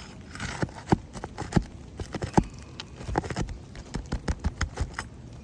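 Sharp, irregular metal clicks and knocks of a pry bar working a roofing nail loose from under a shingle, with a quicker run of ticks near the end.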